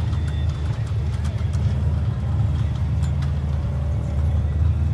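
Rock-crawling race buggy's engine running at low revs as it climbs over boulders: a steady low engine note with a few faint clicks.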